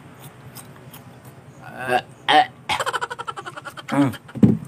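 A man chewing crunchy June beetles with faint crackles, then a few short throaty grunts and a rapid, rattling burp lasting about a second, three seconds in.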